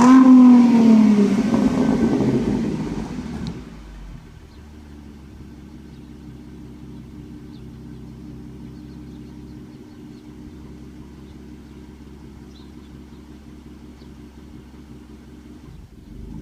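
2013 Ford Mustang's 3.7-litre V6 breathing through an aftermarket Ford Racing exhaust with an X-pipe, blipped once: the revs peak right at the start and fall away over a couple of seconds. It then settles to a steady idle.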